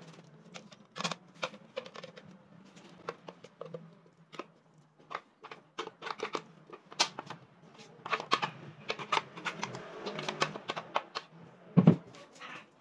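Metal spoon scraping and clinking against a plastic blender jar and a glass bowl while thick chutney is spooned out: a run of irregular scrapes and clicks, with one louder knock near the end.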